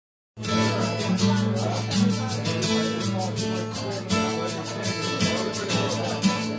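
Uilleann pipes playing an Irish traditional tune over their steady drones, with an acoustic guitar strumming along in rhythm.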